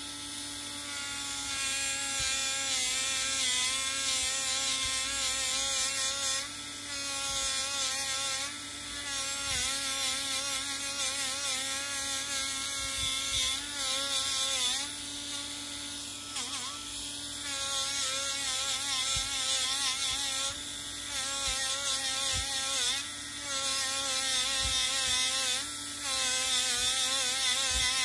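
Small handheld rotary tool spinning a buffing wheel against a heat-blackened copper ball: a steady high motor whine whose pitch wavers and dips now and then, over the hiss of the wheel on the metal. The buffing is taking off the black oxide film to bring up the red cuprous oxide beneath.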